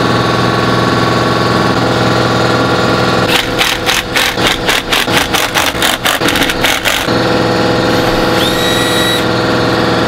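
Angled die grinder running steadily while cleaning battery terminals. About three seconds in, the sound turns choppy with rapid pulses for roughly four seconds as the tool works against a terminal, then it runs steady again.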